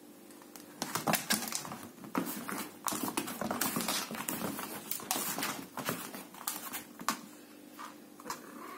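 A hairless Sphynx cat's paws and claws scrabbling and skittering over a rug and linoleum floor as it chases a string toy. The rapid run of scratchy patters starts about a second in, thins out about seven seconds in, and a few more come near the end.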